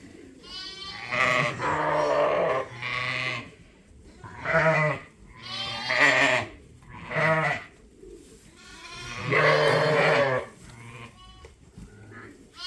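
Sheep bleating repeatedly: about seven wavering calls of differing pitch, some deep and some high, the longest coming near the end.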